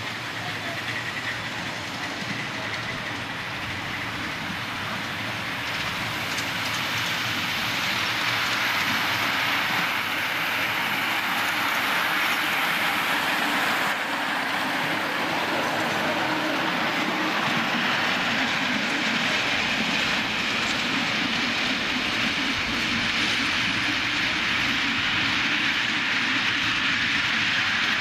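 Miniature live-steam passenger train running on its track, its wheels clattering along the rails. It grows louder over the first several seconds and then runs steadily.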